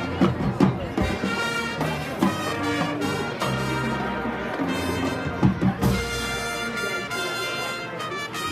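Marching band playing: brass section sounding held chords over drum strokes.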